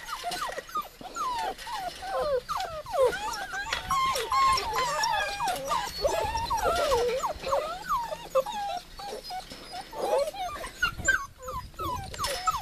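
A litter of puppies whining together, many overlapping whines sliding up and down in pitch: begging to be fed.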